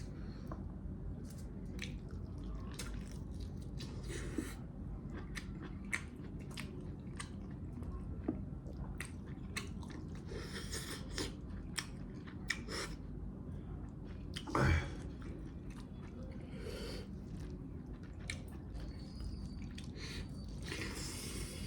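A person chewing and biting pieces of spicy mutton leg: many small wet mouth clicks and smacks, with a brief louder sound about fifteen seconds in.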